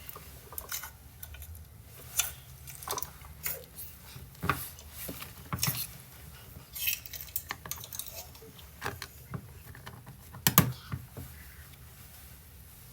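Slime being squished and stretched by hand, making irregular sticky clicks and pops, the loudest about two thirds of the way through.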